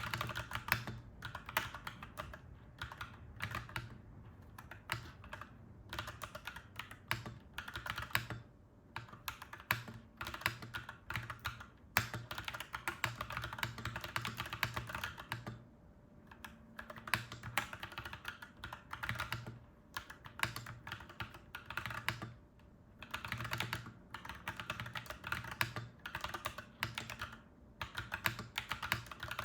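Clacky mechanical keyboard being typed on in fast runs of keystrokes, with brief pauses every few seconds.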